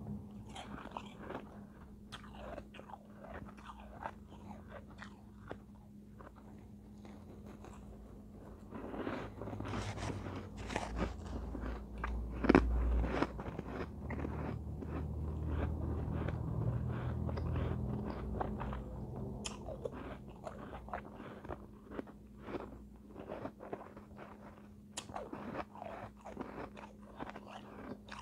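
A person biting and chewing mouthfuls of soft, snow-like shaved ice close to the microphone: a run of wet crunches, thickest and loudest in the middle with one sharp crunch about twelve seconds in. A steady low electrical hum sits underneath.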